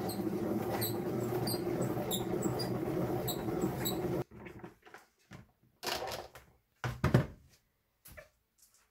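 Plastic salad spinner spinning wet lettuce, a steady whir with squeaks that stops abruptly about four seconds in. Then plastic knocks and clatter as the lid is taken off and the basket is lifted out.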